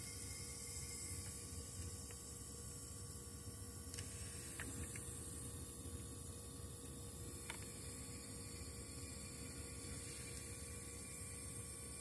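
Refrigerator compressor running with a steady hum while R-134a refrigerant is charged into the system through the low-side service valve, with a few faint ticks.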